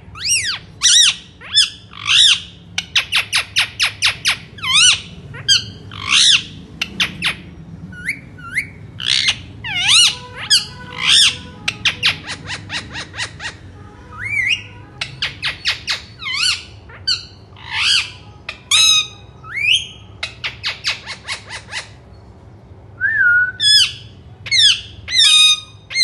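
Indian ringneck (rose-ringed) parakeet giving loud, shrill squawks in quick runs of several calls each, with a short pause a few seconds before the end.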